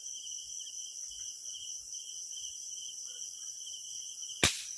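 Crickets chirring steadily in a high-pitched night chorus. Near the end comes a single sharp crack, a shot from a PCP air rifle.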